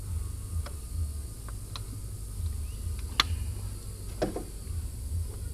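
Scattered sharp clicks and taps of hand tools against car parts, with a louder click past the middle and a short rattle about a second later, over a steady low rumble.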